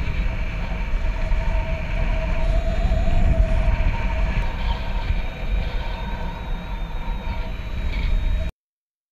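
Airflow rushing over the harness-mounted camera's microphone in paraglider flight: a loud, steady rumble with a thin, steady whine running through it, cutting off suddenly near the end.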